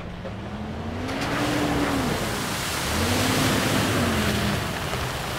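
Toyota 4Runner driving toward and past the camera on a gravel trail, its engine revving up and easing off twice, over the steady noise of tyres rolling on gravel.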